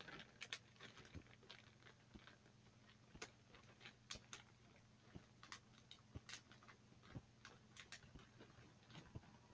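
Near silence: faint room tone with a dozen or so scattered soft clicks and taps.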